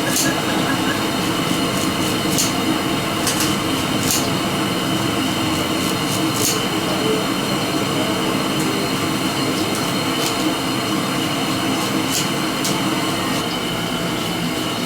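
Steady loud running noise of a moving vehicle, with irregular sharp clicks.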